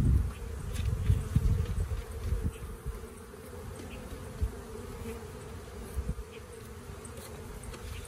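Honeybees buzzing in a steady hum around an open hive, with low rumbling in the first couple of seconds.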